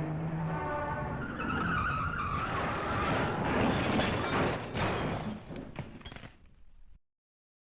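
Vehicle crash sound effect: a steady low tone breaks off into a skidding screech and a noisy crash that fades, then cuts off abruptly near the end.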